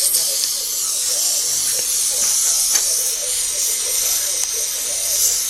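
Gas torch flame hissing steadily as it heats sheet metal to a red glow.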